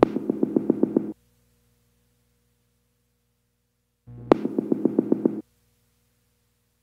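Electronic music in two short bursts of a fast, pulsing synthesizer figure, about eight pulses a second, one at the start and one about four seconds in, with silence between and after.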